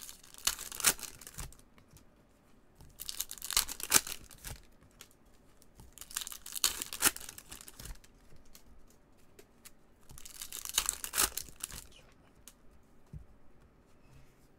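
Foil wrappers of Topps Merlin Chrome soccer card packs being torn open and crinkled by hand, in four crackling bursts of one to two seconds each, about every three seconds.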